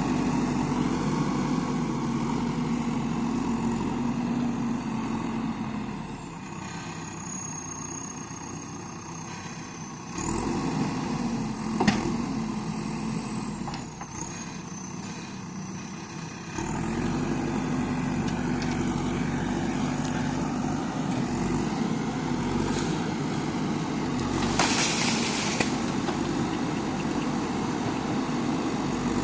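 JCB backhoe loader's diesel engine running under load, easing off to a quieter idle twice and picking up again, with a high whine during the quieter stretches. A sharp knock sounds about twelve seconds in and a short hiss near the end.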